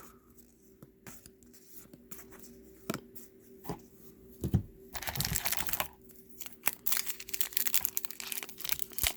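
A trading-card pack wrapper being torn open and crinkled. There are a few soft clicks at first, then dense crackling from about five seconds in.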